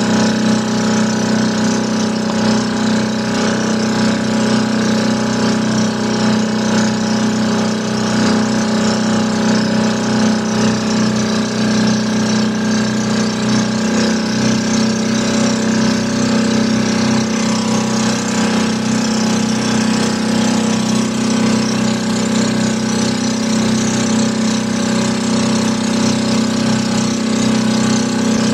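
A fishing boat's engine running steadily, an even drone with no change in speed.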